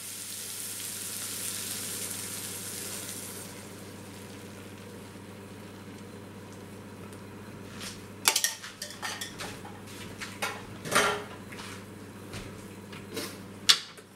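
Egg and milk mix poured into a hot frying pan of mushrooms and onions, sizzling loudly for the first few seconds, then settling to a low hiss. From about eight seconds in, a series of sharp clatters and knocks as kitchen utensils are handled and set down on the counter.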